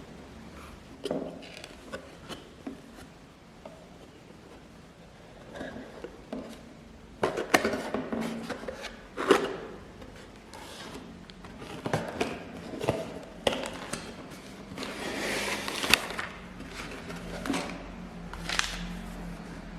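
Hands handling and opening LEGO packaging: scattered taps, clicks and rustles, with a longer rustle about fifteen seconds in.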